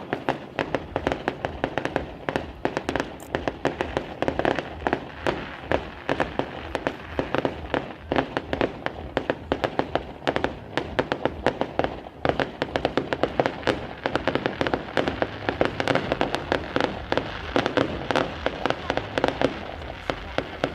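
Fireworks going off in a dense, continuous barrage of sharp bangs and crackles, many per second.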